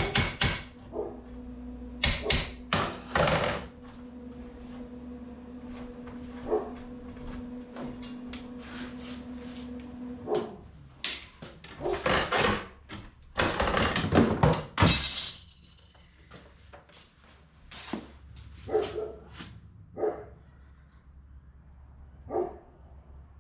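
Scattered knocks and thunks from metalwork in the shop, over a steady hum that cuts off about ten seconds in.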